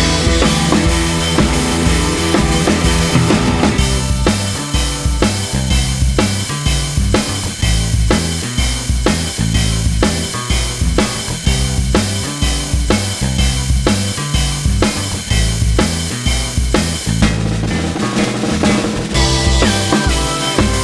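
Background music with a steady drum-kit beat, kick and snare, and a heavy bass line.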